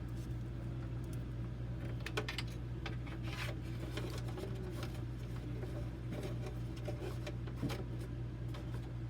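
Computer parts and cables being handled inside a desktop PC case: a few light clicks and rubbing sounds over a steady low hum.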